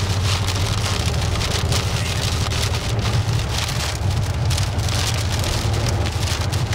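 Rain from a tornado's rear-flank downdraft pelting the windshield and roof of a moving car, heard from inside the car as a dense patter of drops over the car's steady low rumble.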